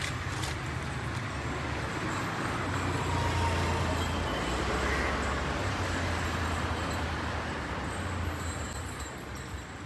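Road traffic: a passing car's engine and tyres, a low steady hum that swells in the middle and fades toward the end.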